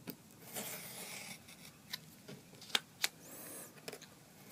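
Craft knife blade scraping through card along a steel ruler, in repeated passes, with a couple of sharp clicks about three seconds in. The blade is getting a little blunt.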